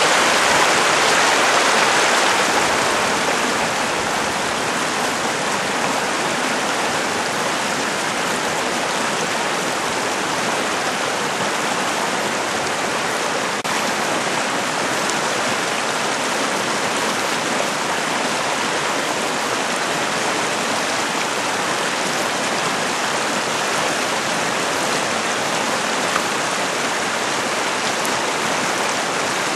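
Shallow, fast river rushing over and around boulders in a rocky rapid: a steady rush of moving water, louder for the first couple of seconds.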